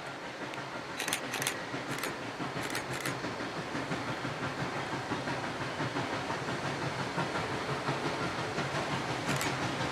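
Southern Railway 630 steam train drawing closer, a steady rumble and hiss slowly growing louder, with a few sharp clicks in the first three seconds and again near the end. No whistle sounds.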